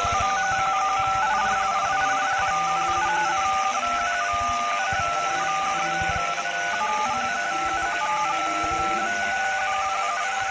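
Emergency Alert System-style alarm: a continuous run of electronic two-note tones, like telephone keypad tones, switching pitch every fraction of a second over a steady hiss.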